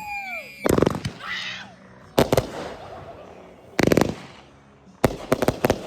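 Fireworks going off: four bursts of rapid, sharp bangs, roughly a second and a half apart.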